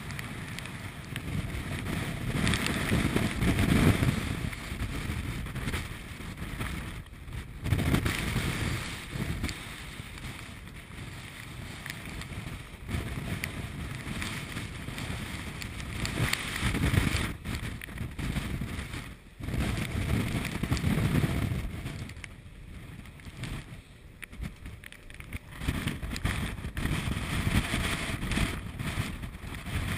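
Wind buffeting the microphone on an open ship's deck, over the rush of heavy seas breaking and sweeping along the hull. The noise swells and falls in surges every few seconds.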